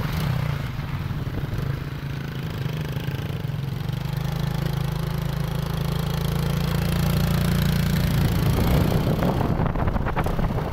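Motorcycle engine running steadily under a rider and passenger, a low hum that grows louder midway as it pulls harder. Wind buffets the microphone near the end.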